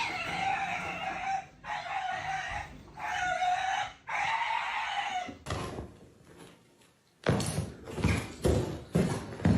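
Three long, drawn-out animal calls, each about a second and a half, then from about seven seconds in a rapid series of sharp knocks or thumps.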